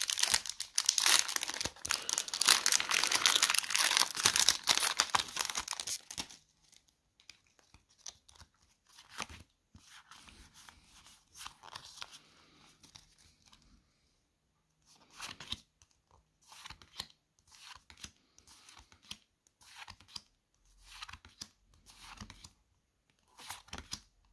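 Pokémon booster pack's foil wrapper being torn open and crinkled, loud for about the first six seconds. After that come short, quieter rustles and slides of the cards being handled.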